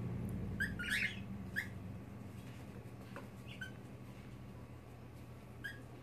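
Cockatiel giving short, quiet rising chirps, about five of them spread through, over a faint low steady hum.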